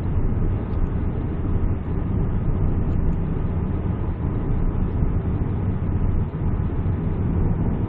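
Steady road and engine noise inside the cabin of a 2008 Peugeot 207cc with a 1.6-litre engine, coasting downhill at about 80 km/h with the accelerator released. A low, even rumble of tyres and engine with no revving.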